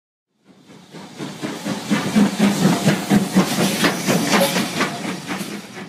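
Steam locomotive working hard: sharp exhaust chuffs about four a second over steam hiss, fading in and then fading out.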